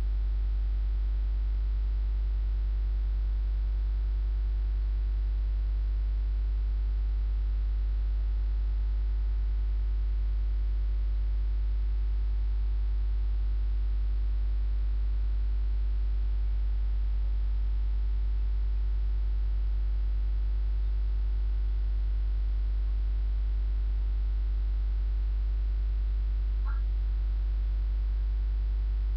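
Steady low electrical mains hum with a light hiss.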